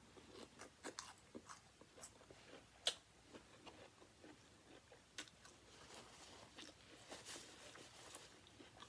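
Faint close-up chewing and crunching of crispy fried chicken wings, a scatter of small crackles and mouth clicks with one sharper crunch about three seconds in.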